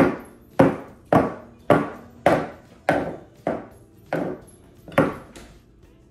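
A metal round cake pan full of batter rapped down on the counter about ten times, roughly two knocks a second, each with a short ringing decay. This settles the batter and knocks out air bubbles before baking.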